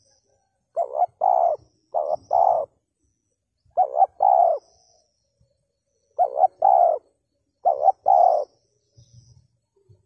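Spotted dove cooing: five two-note phrases, each a short note followed by a longer one, repeated every second or two.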